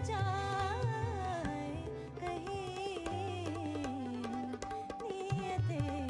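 Background music from a South Asian song: a wavering, ornamented melody over a hand-drum rhythm, in an instrumental stretch between sung lines.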